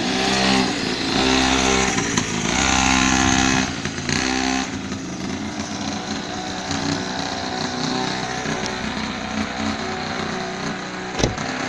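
Pocket bike's small engine running as it is ridden, louder for the first four seconds or so and then lower as the bike moves farther away. A single sharp click near the end.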